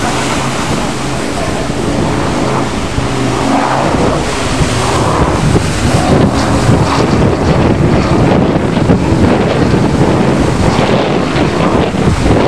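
Strong wind buffeting the microphone over sea noise, growing heavier from about four seconds in. A steady engine drone fades out over the first few seconds.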